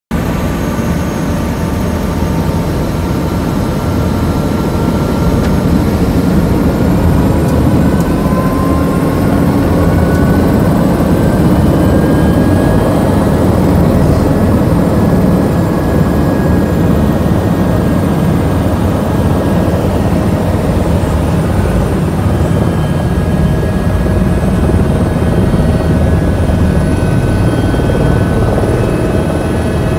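Tour helicopter's rotor and turbine running close by as it lifts off, a steady loud throb with a faint whine above it that drifts slowly in pitch.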